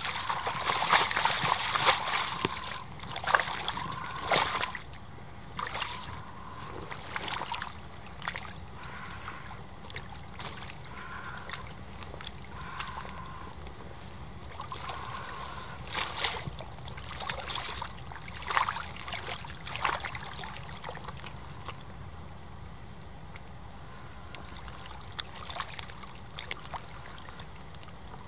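Rubber suit and rubber boots splashing and squelching in a muddy puddle as the wearer shifts about in it. The splashing is busiest in the first few seconds, then comes in scattered bursts and dies down near the end.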